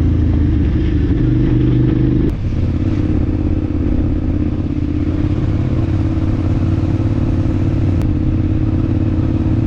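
KTM 990 Adventure's V-twin engine running steadily at low, even revs while the motorcycle rides along. The tone changes abruptly about two seconds in.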